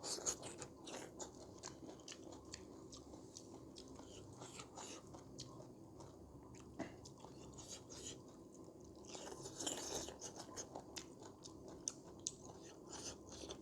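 A person chewing and biting food close to the microphone, with many small crunching, wet clicks. The chewing is a little louder and busier about nine to ten seconds in.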